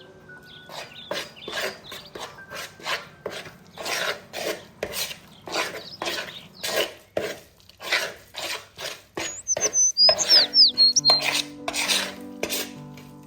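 Rhythmic scraping strokes in a bowl, about two a second and loudest near the end, as the minced chicken, egg and tapioca-flour mixture is mixed by hand. Soft background music plays underneath.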